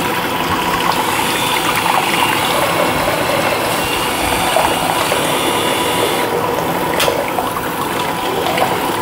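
A water tap running steadily, rinsing the blade head of an electric head shaver, with one sharp click about seven seconds in.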